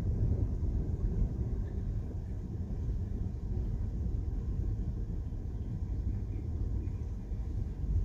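Low rolling thunder from a night storm, easing off and then building again near the end.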